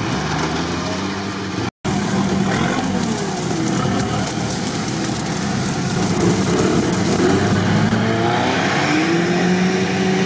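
UAZ Patriot's engine revving hard under load in deep mud, its pitch rising and falling several times, with a brief dropout about two seconds in.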